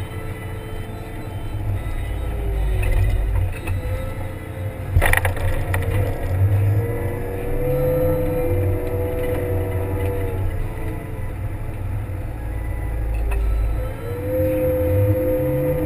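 Kramer 380 compact wheel loader's engine running under load while it plows snow, with a whine that rises and falls in pitch. There is a sharp knock about five seconds in.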